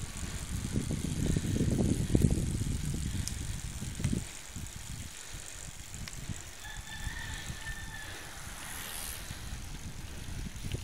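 Low rumble and wind buffeting from a moving vehicle, loudest in the first couple of seconds, with a faint thin squeal about seven seconds in.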